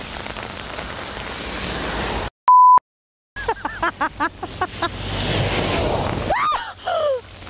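Wind and rain noise buffeting an outdoor microphone, cut off about two seconds in by a second of silence that holds a short, loud, steady beep. The wind noise then returns with a low rumble and short snatches of a voice.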